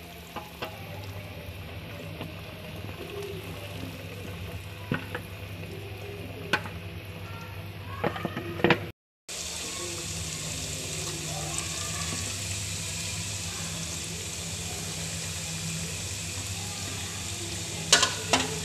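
Cornflour-coated potato chips deep-frying in hot oil in a wok, a steady sizzle with a few sharp clicks now and then. The sound breaks off for a moment about halfway through and comes back louder and hissier.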